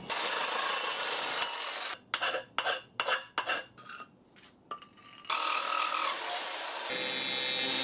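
Corded reciprocating saw cutting an aluminum intercooler pipe bend, a rasping metal cut heard in several stretches. It comes in short separate bursts in the middle, and the loudest, steadiest stretch of cutting, with the saw's whine in it, is near the end.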